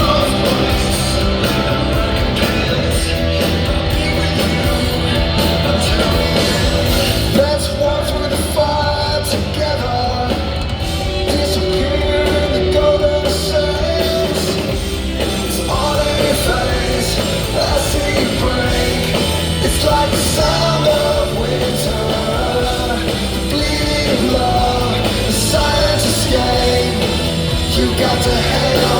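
Rock music playing loudly and steadily.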